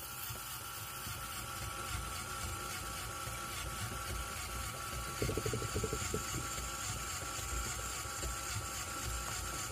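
Lego Technic electric motor driving a Lego chain and gear train in a homemade continuously variable transmission, whirring steadily with a regular pulse from the chain and gears. A short, rougher rattle comes about five seconds in.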